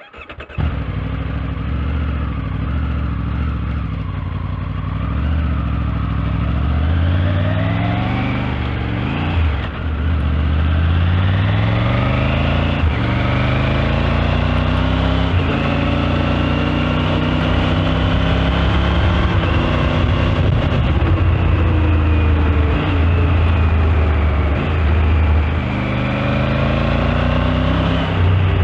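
Triumph Tiger 900 Rally Pro's three-cylinder engine running on the road, the pitch climbing several times as the bike accelerates and dropping back between rises, with a short dip about ten seconds in.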